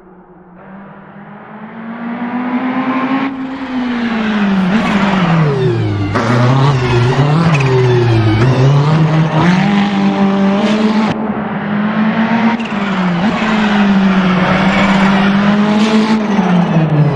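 Ferrari 488 GT3's twin-turbo V8 race engine, growing louder over the first few seconds as the car comes closer, then running loud at high revs with its pitch rising and dropping repeatedly, broken off sharply several times as the throttle is lifted or gears change.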